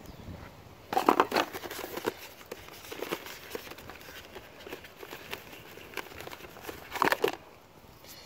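Cardboard packaging being handled, with rustling and crinkling as a folded box insert is opened and a cable is pulled out. It is loudest about a second in and again near the end.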